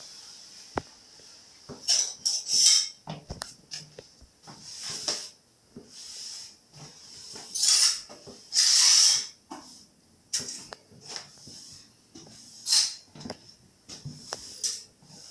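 Broom sweeping broken picture glass across a hard floor into a dustpan: a string of irregular brushing strokes, with shards scraping and tinkling and short clinks in between.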